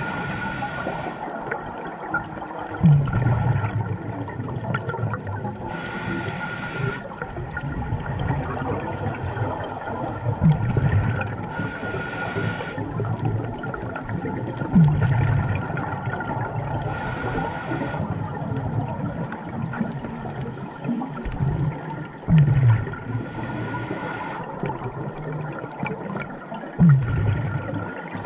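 Scuba diver breathing through a regulator underwater, heard close up: a hissing inhale, then a loud rush of exhaled bubbles a few seconds later, repeating about every five to six seconds for five breaths.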